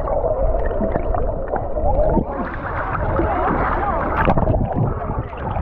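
Muffled gurgling and sloshing of sea water around a waterproof action camera that dips below the surface and back up, with bubbles churning past the lens.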